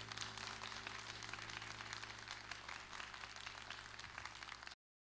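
Audience applauding with a dense patter of many hands clapping as the song ends, over the last low keyboard chord dying away underneath. The sound cuts off abruptly near the end.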